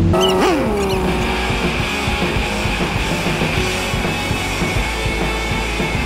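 An off-road race vehicle's engine drops quickly in pitch in the first second, then background music carries the rest.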